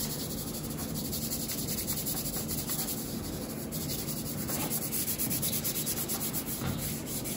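A hand rubbing quickly back and forth over kinesiology tape stuck on bare skin, a steady rubbing made of many fast strokes. The rubbing warms the tape's adhesive to activate the glue so it bonds to the skin.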